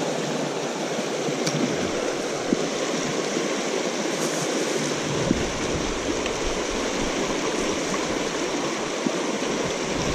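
Small creek rushing steadily over rocks and riffles.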